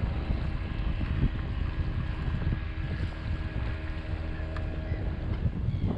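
Wind buffeting the microphone in gusts, with a steady motor hum underneath that fades out near the end.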